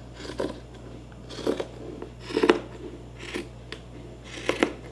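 Scissors cutting through a cable-knit sweater: about five separate snips, roughly a second apart.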